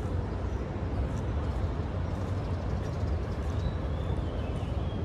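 Steady low rumble of distant city traffic, with a few faint high bird chirps in the second half.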